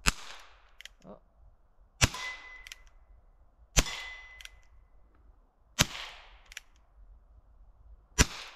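.22 revolver firing powderless, primer-only rounds: five sharp shots about two seconds apart. After two of them comes a short ringing note from a hit steel target, and there are fainter clicks between shots.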